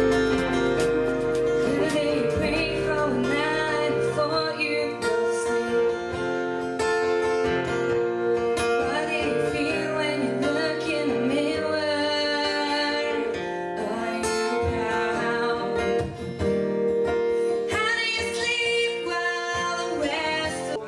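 A woman singing live into a handheld microphone, accompanied by guitar.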